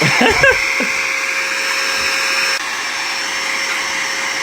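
Electric air duster for cleaning computers running steadily: a whirring motor whine over a rush of blown air, stepping down slightly in level about two and a half seconds in. A few short, pitched cries sound over it in the first second.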